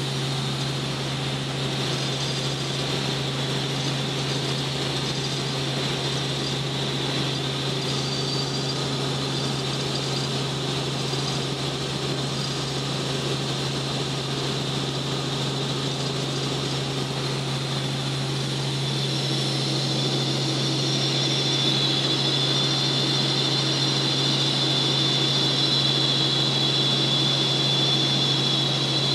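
Light helicopter in cruise, heard from inside the cabin: a steady low drone from the engine and rotors with a high whine over it, the whine and the overall sound growing louder about twenty seconds in.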